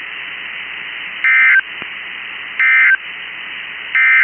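Three short bursts of warbling SAME digital data tones, about a second and a half apart, over steady radio hiss. This is the Emergency Alert System end-of-message (NNNN) code on NOAA Weather Radio, marking the close of the tornado watch message.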